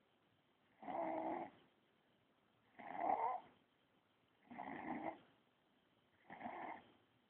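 A sleeping baby snoring: four snores about two seconds apart, with quiet breathing between them.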